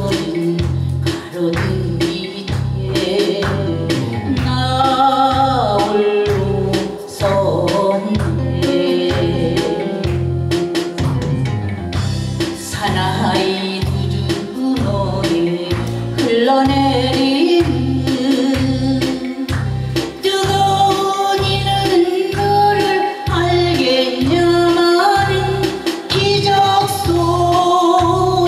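A woman singing a Korean trot song live into a microphone over a backing track with a steady, regular bass beat.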